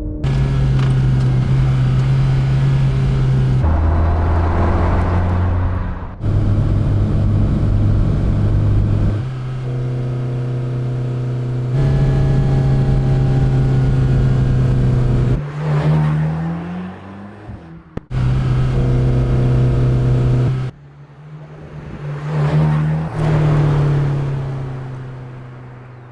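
Mercedes-AMG GT Black Series' 4.0-litre twin-turbo flat-plane-crank V8 running, mostly at steady revs, in several short clips that cut abruptly from one to the next. The revs rise and fall twice in the second half, and the sound fades out at the end.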